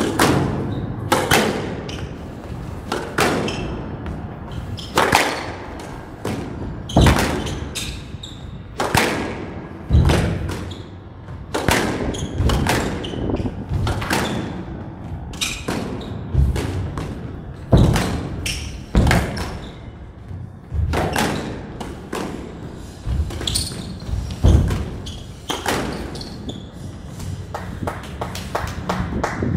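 Squash rally: the ball cracks off rackets and smacks the walls and floor, a sharp hit with a short ringing tail about once a second in an uneven rhythm. The hits stop near the end as the rally finishes.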